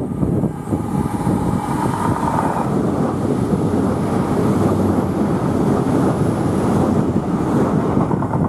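Great Western Railway Class 800/802 bi-mode Intercity Express Train passing directly beneath, a steady rumble of running gear and engines, with a faint whine in the first couple of seconds and wind on the microphone.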